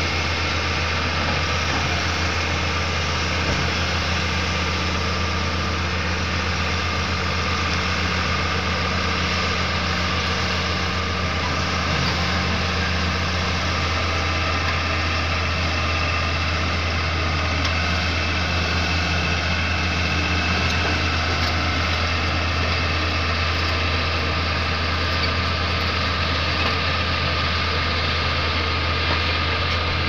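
Crawler bulldozer's diesel engine running steadily with a constant low drone as the dozer pushes river sand and gravel with its blade.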